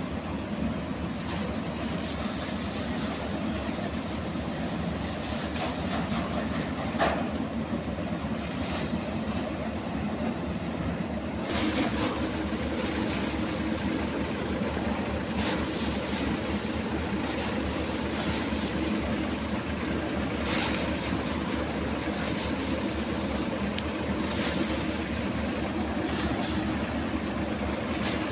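Tractor-driven paddy thresher running under load as rice sheaves are fed into it: a steady mechanical drone from the spinning threshing drum and the Powertrac Euro tractor's engine, with occasional short rasps as the sheaves are beaten. The drone grows a little louder about a third of the way through.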